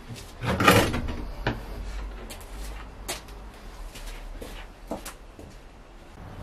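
A short scraping clatter, the loudest sound, about half a second in, followed by a few scattered light knocks and rustles over a low rumble.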